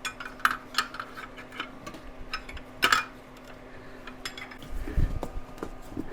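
Wrench and pry bar clinking and tapping against the power steering pump and its bracket as the pump is levered back and bolted tight to tension its belt: a run of sharp, irregular metallic clicks over the first three seconds, then a duller knock about five seconds in.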